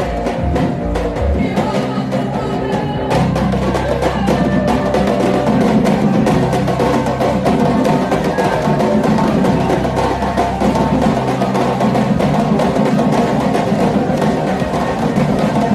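Live Afro-Bahian band music played loud and continuously, carried by heavy drum percussion over a deep bass.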